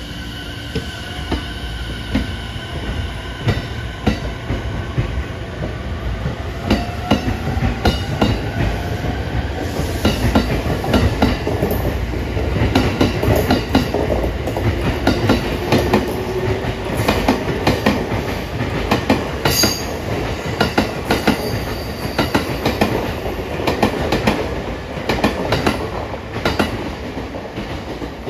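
E217 series electric train departing, its wheels clattering over rail joints at close range, with the clacks coming closer together as it gathers speed and a motor whine rising in pitch. The sound drops away near the end as the last car passes.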